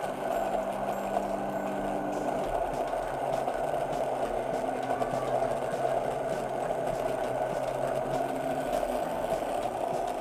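Stick blender running steadily in a glass bowl, mixing soap-making oils and shea butter.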